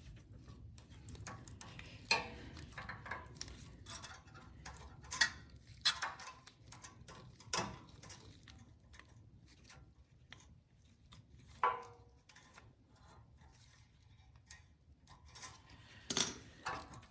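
Irregular clicks, taps and metal clinks of tools and small metal parts being handled as a carburetor is refitted to a snowblower engine; one knock about two-thirds of the way through rings briefly.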